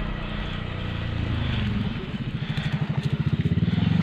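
A small engine running, with a rapid, even pulse that gets louder about halfway through.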